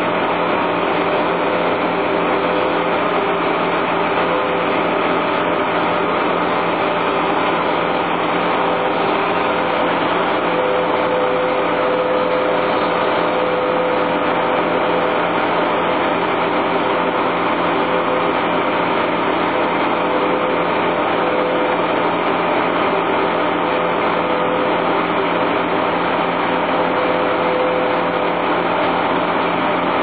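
Brush chipper's engine running steadily, unchanging throughout.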